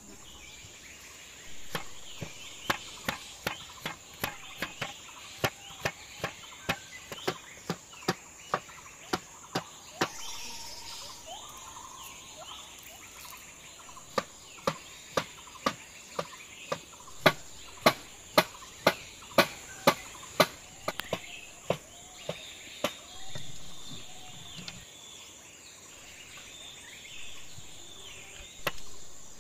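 Steel cleaver chopping on a wooden cutting board in two long runs of sharp strokes, about two a second. Behind it a steady high insect drone and scattered bird calls.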